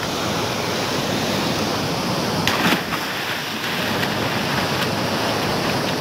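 Fast-flowing water rushing and churning through a concrete-lined irrigation channel, a steady rush, with a brief louder noise about two and a half seconds in.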